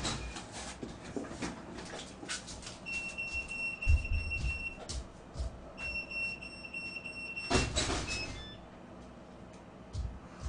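Two long electronic beeps at one steady high pitch, each about two seconds long with a short gap between, among scattered knocks and clicks; a loud knock right at the start.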